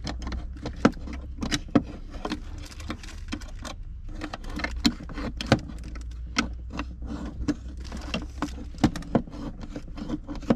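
Retro hand-held lever can opener stabbing and prying its way around the lid of a tuna can: a run of irregular sharp metal clicks, about two or three a second, over a low steady hum.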